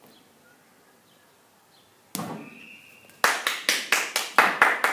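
A barbell swung like a golf club hits a large exercise ball with a single thud about two seconds in. From about three seconds in comes a quick, even run of hand claps, about five a second.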